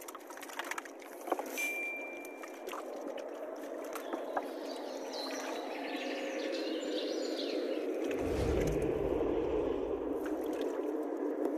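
Water sloshing and splashing with the rustle and patter of a wet cast net being shaken out into a plastic tub of caught tilapia. Scattered small knocks run through it, and a deeper rumble comes in about two-thirds of the way through.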